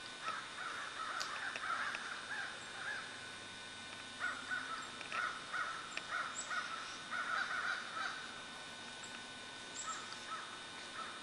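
Crows cawing in runs of quick calls: one group starting just in, a longer one in the middle and a shorter one near the end, over a steady faint hiss and hum.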